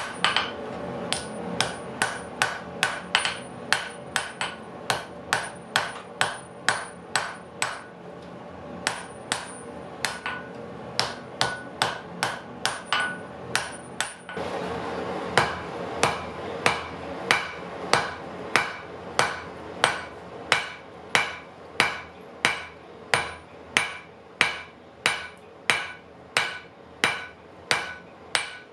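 Hand hammer striking a red-hot wrought-iron and steel knife blade on an anvil: a steady run of blows, about two a second, each with a short metallic ring, as the blade is forged to shape.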